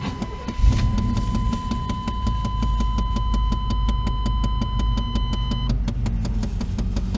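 1994 Chevy Silverado's 5.7-litre 350 V8 starting after a Seafoam heat soak: it catches under a second in and runs on at a low idle. A rapid, even clicking runs alongside it, which the owner puts down to one of the heater's air doors. A steady high electronic tone sounds until about six seconds in, then stops.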